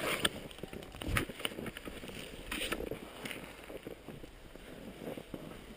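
Skis, ski boots and poles scraping and crunching in snow, with irregular sharp knocks and clicks, over faint wind noise on the microphone.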